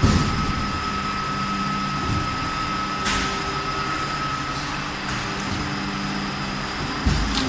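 Hydraulic foam-cutting press running with a steady motor hum and whine. A heavy thump as the press strokes comes right at the start and again near the end, with a short hiss about three seconds in.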